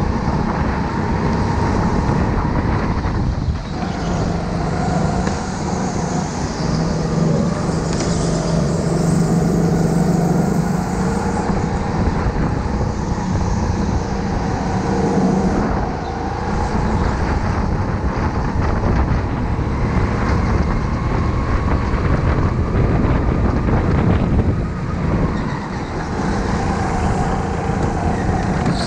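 Go-kart's drivetrain running at speed, heard from the kart itself, its pitch rising and falling with speed through the corners, the level dipping briefly three times.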